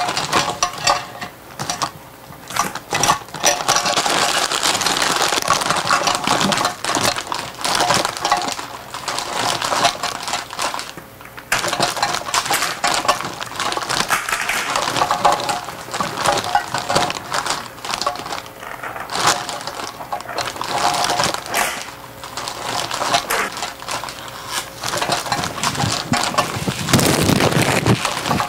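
Silvery packaging waste being crinkled and crumpled by hand: a dense stream of crackling and rustling that swells and breaks off every few seconds, heavier near the end.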